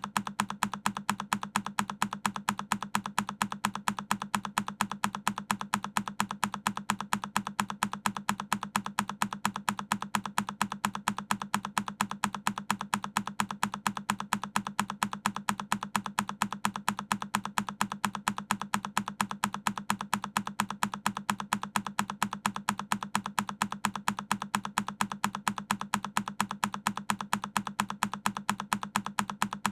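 A single key on a Keychron K10 mechanical keyboard being pressed, looped into rapid, evenly spaced clicks that repeat unchanged.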